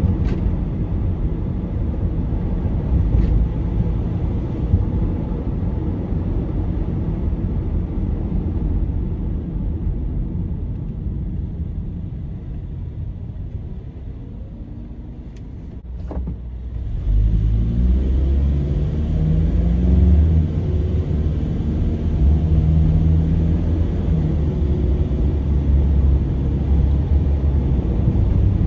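Car road and engine noise heard inside the cabin while driving: a steady low rumble that eases off as the car slows about halfway through. After a single sharp click, the rumble builds again with an engine note climbing in pitch as the car accelerates.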